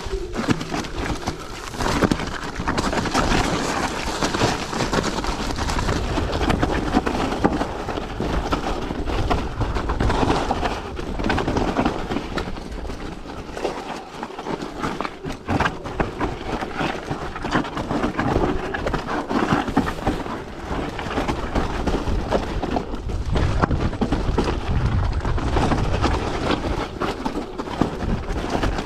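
Mountain bike descending a steep rocky trail: tyres crunching and rattling over loose rock and gravel, with many small knocks from the bike, under a low rumble of wind on the microphone that grows stronger near the end.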